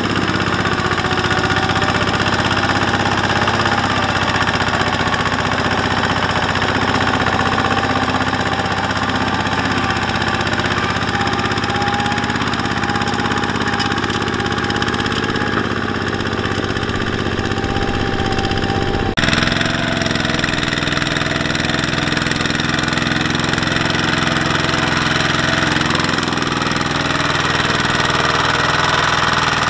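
The single-cylinder diesel engine of a two-wheel walking tractor, running steadily under load as it hauls a loaded trailer through deep mud. The sound changes abruptly about two-thirds of the way in, then carries on.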